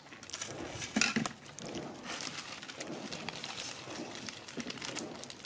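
Light, irregular clicks and rustling of young macaques picking rice and snack crumbs off plastic and china plates, with a short louder rustle about a second in.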